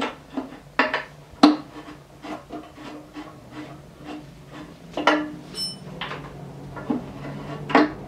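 A rag rubbing over a lathe's metal headstock casing while hands handle it, with a few sharp knocks against the metal, the loudest about one and a half seconds in.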